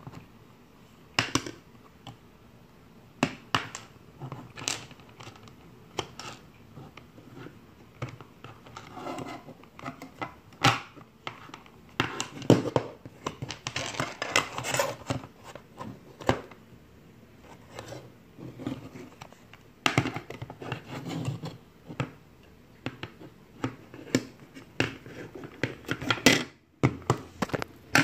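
Hard plastic phone holster belt clip being handled and turned over on a tabletop: irregular clicks and knocks with stretches of scraping.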